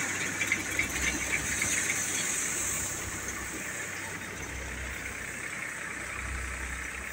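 Tractor-powered paddy thresher running steadily, its drum beating the rice straw being fed into it over the tractor engine. A little louder in the first three seconds, then steady.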